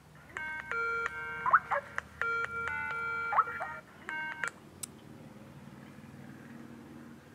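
Skype outgoing-call ringing tone from a Samsung smartphone's speaker: two phrases of layered electronic tones and a short third burst, cutting off about four and a half seconds in. A faint low hum follows.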